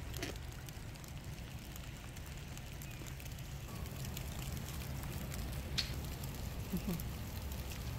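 Outdoor background noise: a steady low rumble with faint crackles, and a short faint pitched sound near the end.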